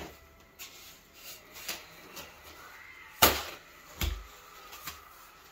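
Mortar being mixed by hand in a pan: scattered scrapes and clicks of the mixing tool, with a sharp knock about three seconds in and a duller thump just after.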